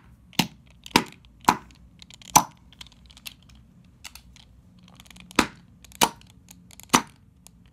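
Metal screwdriver striking small plastic LEGO bricks: sharp clicking knocks, four in quick succession, a pause with only faint ticks, then three more near the end.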